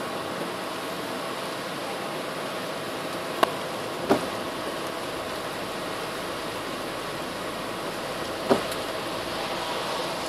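Steady road and tyre noise heard inside a car driving on a wet road. Three short sharp knocks stand out, one a little over three seconds in, another about a second later, and a third near the end.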